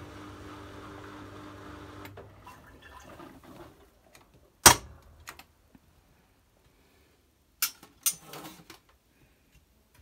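Miele W2241 front-loading washing machine humming steadily, the sound stopping about two seconds in. Then a loud sharp click about halfway through, and two more clicks with a brief rustle near the end.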